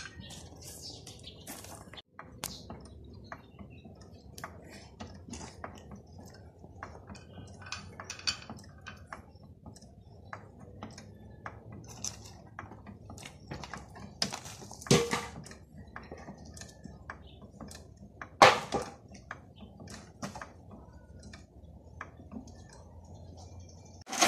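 Hand tools clinking and knocking on car parts in scattered, irregular strikes, with two louder knocks in the second half.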